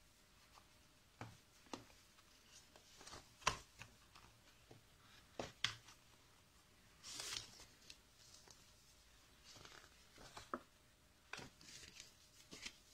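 Cardboard earbud box and its paper insert being handled: scattered light taps and clicks as the box and inner tray are moved, with a brief rustle about seven seconds in.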